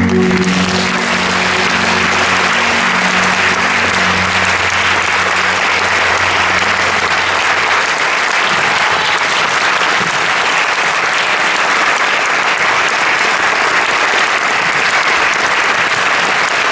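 Audience applauding steadily and loudly after a live song. The accompaniment's last low chord fades out under the clapping over the first several seconds.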